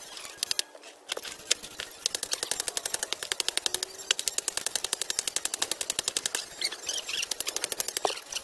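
Hammer striking a concrete landscape block to chip and trim it: a few separate knocks, then a long fast run of light, even taps, about nine a second, and a few slower strikes near the end.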